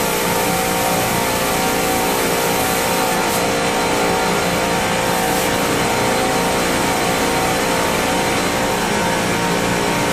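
Steady, loud drone of running chiller plant-room machinery: a constant hum with several steady tones over an even mechanical noise that does not change.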